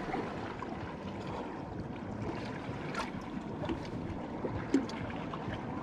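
Water lapping gently against the side of a boat hull, with wind on the microphone and a few faint drips or ticks.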